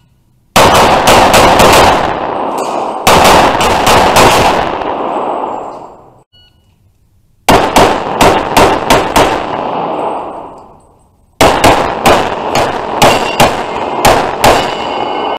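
Rapid pistol fire from a custom 2011 in .40 S&W, in three fast strings of shots with short pauses between, the hits on steel plates clanging. Each shot echoes heavily in the enclosed concrete range.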